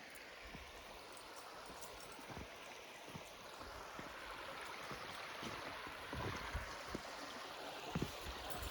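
Creek water running, a steady rushing that grows gradually louder, with scattered low thumps in the second half.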